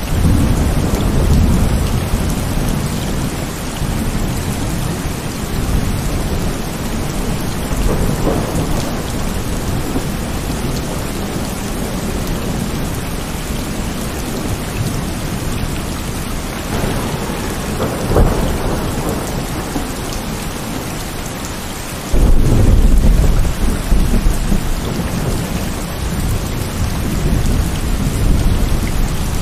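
Heavy rain falling steadily, with several rolls of thunder over it: a rumble right at the start, sharper cracks about eight and eighteen seconds in, and the loudest rumble breaking in suddenly about three-quarters of the way through.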